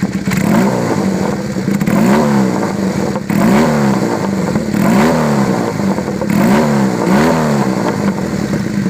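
Honda CB250T Hawk parallel-twin engine running through a kamikaze-style exhaust with an extra-large-bore silencer, idling and blipped about six times, each rev rising sharply and dropping straight back to idle.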